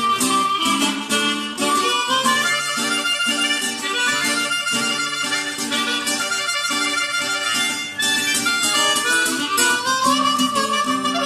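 Blues harmonica solo over strummed acoustic guitar, with a note sliding upward about ten seconds in.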